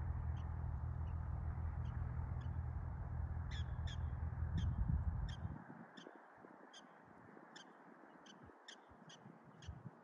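Prairie dogs calling: short, high barks repeated about twice a second, growing louder a few seconds in. A steady low rumble underneath cuts off about halfway through.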